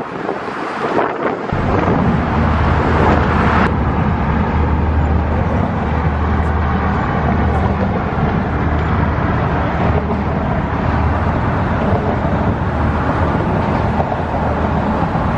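Wind buffeting the microphone, a heavy low rumble that sets in about a second and a half in, over the steady noise of car traffic on the bridge roadway.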